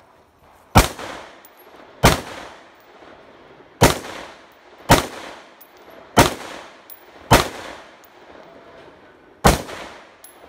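Handgun shots fired singly: seven shots irregularly spaced about one to two seconds apart, each with a short echoing tail, and an eighth at the very end.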